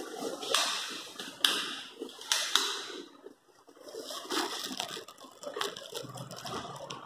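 Several sharp scuffs and knocks, roughly one every second in the first half and smaller ticks after, from a phone being carried by someone walking through an empty tiled room.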